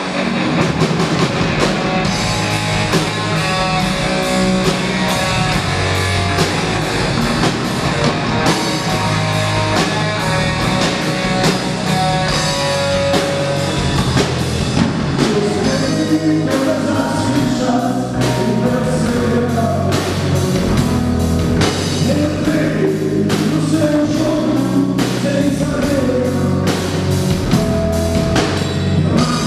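Live rock band playing: distorted electric guitars over a drum kit, with a man singing into the microphone.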